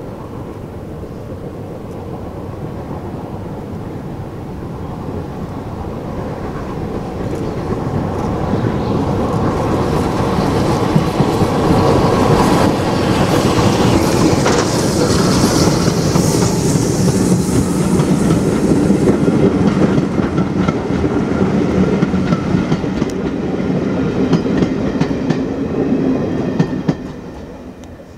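Rebuilt Bulleid Battle of Britain class three-cylinder steam locomotive 34053 working hard as it approaches and passes with a train of coaches. Its exhaust beats and the clickety-clack of wheels over rail joints grow steadily louder, hold for several seconds as it goes by, then drop away sharply near the end.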